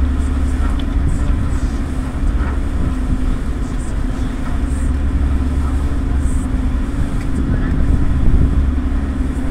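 Passenger ferry's engines running with a steady low drone and a constant hum, heard from the deck over the wash of the water.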